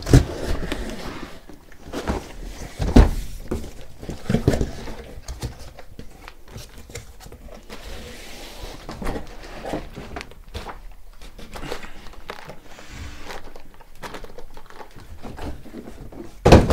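Large cardboard box being handled and unpacked: cardboard rustling and scraping as the panels are slid out, with several hard thunks as the box and panels are set down, the loudest near the end.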